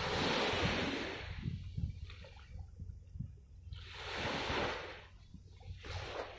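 Small waves washing and splashing against the shore in three surges, the first and strongest at the start, another about four seconds in, with wind buffeting the microphone underneath.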